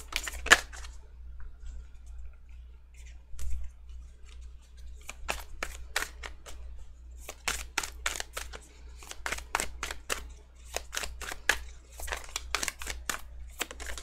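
A tarot deck being shuffled by hand: a run of sharp card snaps and clicks, a few at first, then coming thick and fast through the second half, over a steady low hum.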